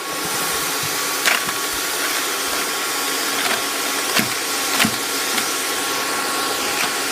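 A hair dryer blowing air into a charcoal-fired furnace makes a steady, loud rushing whir. A few sharp knocks break through it: about a second in, and twice between four and five seconds in, as a steel poker strikes the cans and charcoal.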